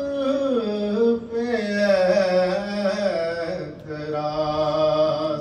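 A man singing a line of an Urdu devotional verse in praise of Imam Ali, stretching the syllables into long held notes with wavering ornaments, with a short breath a little before the end.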